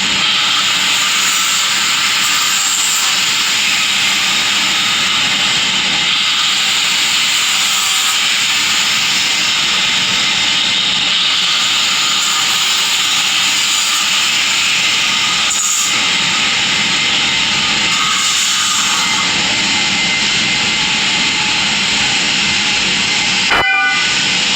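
A loud, steady hiss that holds evenly throughout, broken by a brief click or dropout about a second before the end.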